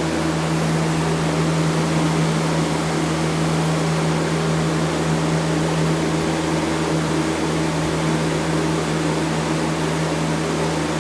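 A steady machine hum with a constant, even hiss.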